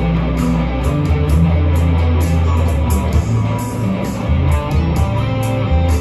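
Electric guitar, a yellow Telecaster-style solid-body, played as an improvised lead over a backing track with sustained low bass notes and a steady, evenly ticking beat.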